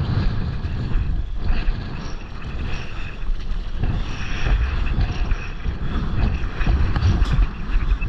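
Wind buffeting the camera's microphone in a steady low rumble, over water splashing and swishing as a stand-up paddle strokes through the sea beside the board.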